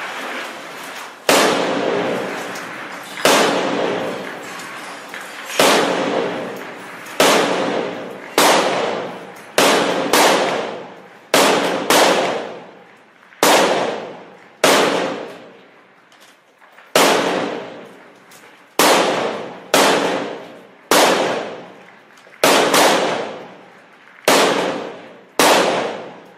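Gunshots fired one at a time, about twenty of them at an irregular pace of roughly one every one to two seconds, each ringing out with a long echo in a large, bare, shell-damaged room.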